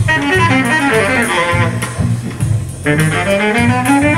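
Recorded music played through Lansche loudspeakers driven by Mola Mola amplifiers, heard in the demo room: a bass line moving under a pitched melody.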